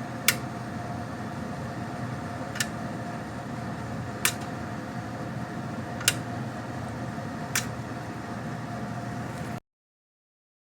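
A steady machine hum with a constant tone, broken by five sharp clicks spaced irregularly about one and a half to two and a half seconds apart; it cuts off abruptly near the end.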